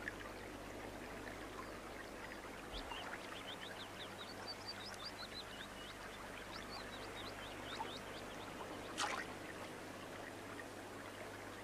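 Flowing stream with many short, high bird calls chirping over it, and one brief sharp sound about nine seconds in. A steady low hum runs underneath.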